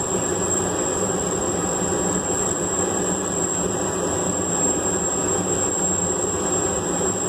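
Steady rushing roar from a running blacksmith's forge, with a thin high-pitched whine over it; the wrench twisting the hot rebar in the vise makes no separate sound of its own.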